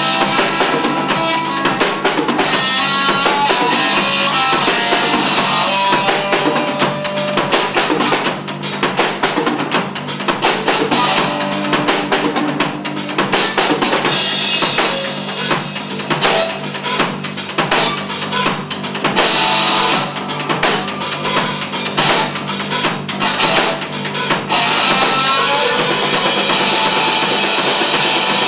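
Live rock band playing an instrumental passage: a drum kit with kick drum and cymbals under distorted electric guitar. The cymbals swell into a heavy wash about halfway through and again near the end.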